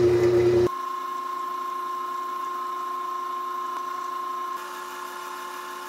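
Wood lathe running at speed, its motor giving a steady whine, while sanding paste is worked onto the spinning piece. About a second in the sound drops abruptly to a quieter, thinner whine.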